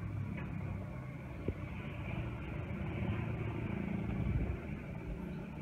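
Jet engine noise of a FedEx Boeing 777-200 flying overhead: a steady low rumble with a fainter hiss above it, growing a little louder about four seconds in, then easing.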